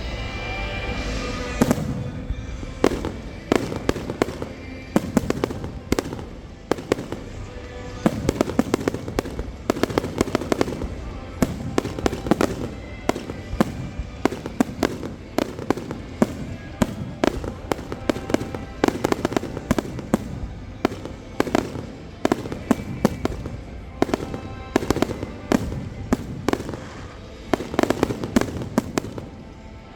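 Fireworks going off in quick succession: many sharp bangs and pops, several a second, without letup.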